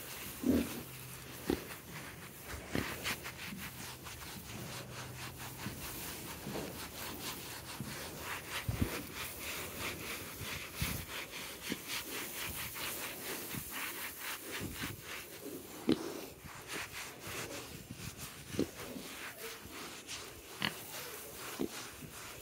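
A work-gloved hand scratching a kunekune pig's coarse, bristly coat in repeated rubbing strokes, with a few short low pig grunts now and then.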